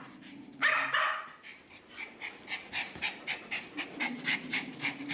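Dog panting rapidly, about four breaths a second, after a brief louder dog sound a little over half a second in.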